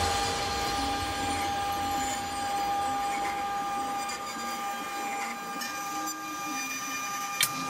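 A power tool's electric motor running steadily, with a high whine over a hiss; the whine fades near the end.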